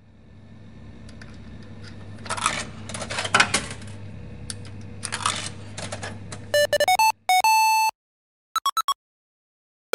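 Title-sequence sound effects: a low steady hum with a noisy crackle and a few sharp hits swells for about six seconds. A quick run of 8-bit video-game beeps follows, then a short pause and a few more quick blips.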